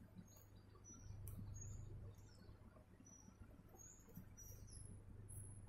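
Faint high bird chirps, short and repeated many times, over a low steady hum.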